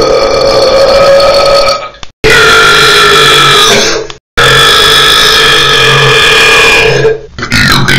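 Loud, long human burps: one ends about two seconds in, then two more follow, each lasting about two seconds, with brief breaks between them.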